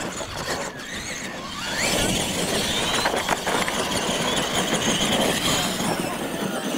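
R/C monster trucks racing, their electric motors and gearing whining, with a rising whine as they accelerate about one and a half seconds in.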